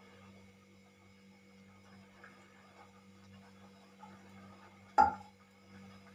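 A steel cooking pot and ladle clank once, sharply, about five seconds in, with a short metallic ring. A faint steady low hum runs underneath.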